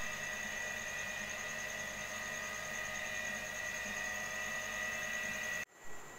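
Steady electrical hum with a high-pitched whine over a background hiss. It cuts off abruptly near the end, leaving a fainter hiss.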